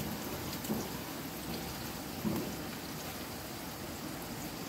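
Steady sizzling of onions frying in oil in a karahi, browning on the stove.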